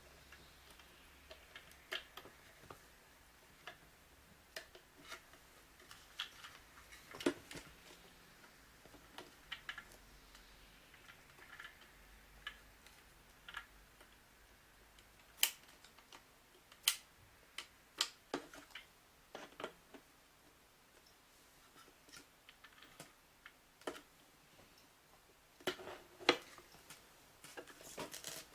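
Irregular small clicks and taps of plastic and metal parts being handled as a digital door lock's wiring connectors are plugged into their terminals and the lock body is fitted against the door. A few sharper clicks come about halfway through.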